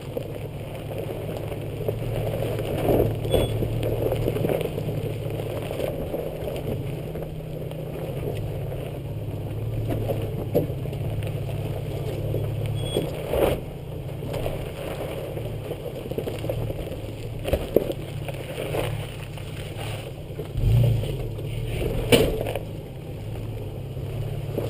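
Off-road 4x4 engine running steadily at low speed while crawling over rock, with scattered knocks and crunches from the tyres and underbody on stone.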